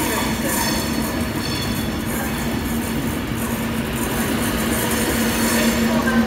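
Avanti West Coast Class 390 Pendolino electric train 390044 rolling slowly through a station: steady rumble of wheels on the rails with a steady low hum that grows a little louder near the end.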